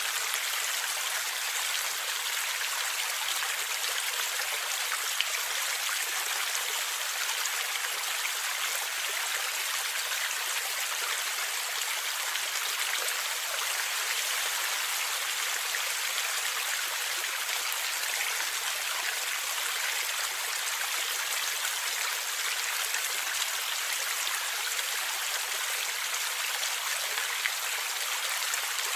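Stream water flowing and gurgling, a steady, even rush with almost no low rumble.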